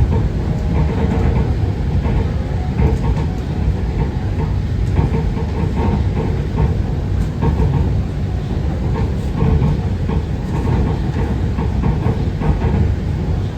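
Bangkok MRT Pink Line monorail car running along its guideway between stations, heard from inside the car: a steady low rumble of its rubber tyres and drive, with faint rattles.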